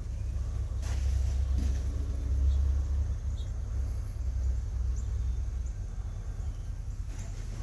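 Low rumble of wind buffeting the microphone, stronger in the first few seconds and then easing, with a few faint high chirps.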